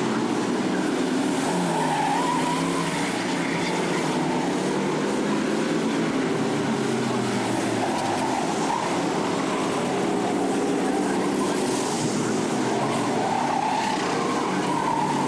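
Several stock car engines running hard together as a pack of figure-8 race cars laps the track, a steady loud mix with engine pitches rising and falling.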